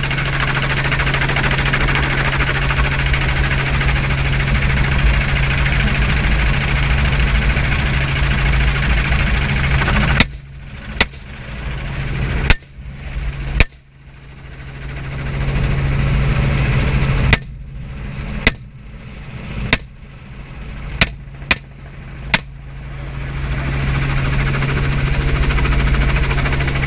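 Steady engine and rotor noise of a Robinson R44 helicopter in flight with a low hum, heard through an open door. About ten seconds in come four sharp gunshots within a few seconds, then six more between about 17 and 22 seconds, with the helicopter noise dipping after each shot.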